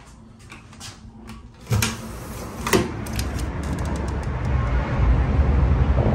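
Small latch clicks, then a hotel window being pushed open. The noise of the street below pours in suddenly and goes on as a steady rumble that keeps growing louder, with another knock a second later.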